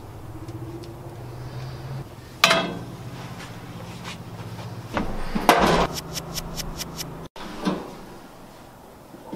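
Handling noises at a gas grill: a sharp metal knock, a louder clatter, then a quick run of about seven clicks, and one more knock near the end.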